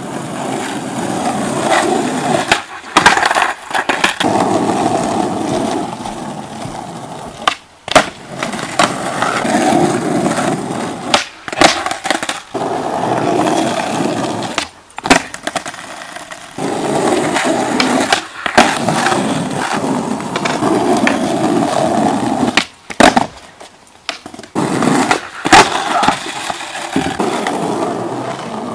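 Skateboard wheels rolling on rough asphalt in runs of several seconds, broken several times by sharp cracks of tails popping and boards slapping and clattering on the ground as flatground tricks are tried.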